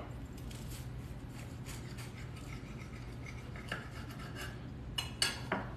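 A HexClad knife sawing through a grilled cheese sandwich on wheat toast, the toasted crust rasping under repeated short strokes, with a few sharp clicks of the blade near the end.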